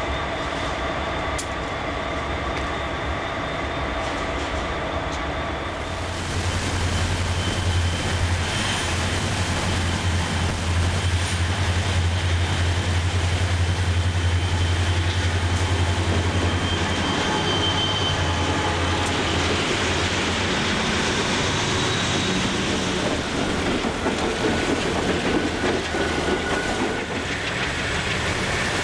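Diesel-hauled freight train passing close by: the locomotives' engine rumble comes in suddenly about six seconds in, then eases off while the rolling cars keep up a steady rail noise.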